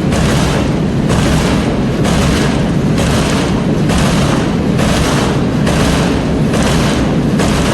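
Wind buffeting the phone's microphone: a loud, steady low rumble. Over it, a rushing hiss of leaves stirring in the gusts swells and fades about once a second.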